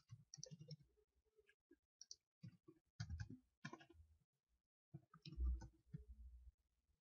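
Faint computer keyboard typing: short, irregular bursts of key clicks, with a dull low thump about five and a half seconds in.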